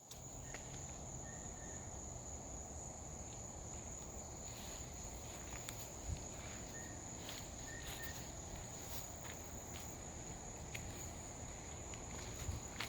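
An insect trilling on one steady high note without a break, over low background noise with faint scattered ticks and a few short, soft chirps.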